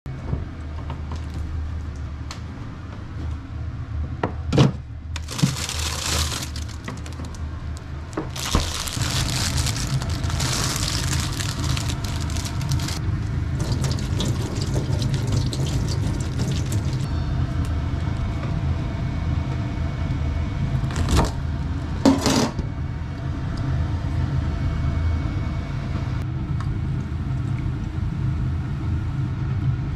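Kitchen tap running into a stainless-steel sink in several spells, water splashing over a bunch of green onions as they are rinsed, with a few sharp knocks in between. A steady low hum lies underneath.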